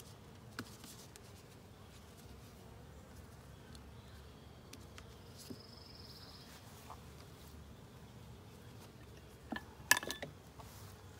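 Honeybees buzzing steadily around a hive. Near the end, a quick run of sharp metallic clicks as a ratchet strap's buckle is worked open on the hive's metal lid.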